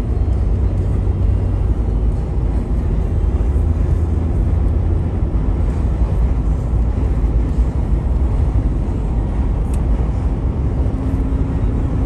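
Vehicle driving: a loud, steady low rumble of engine and road noise that holds even throughout, with a faint steady hum joining near the end.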